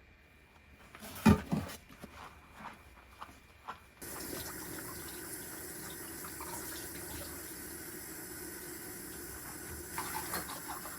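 A few knocks and clicks of things being handled, the loudest about a second in. Then, about four seconds in, water from a tap starts running steadily into a sink, with a little clatter near the end.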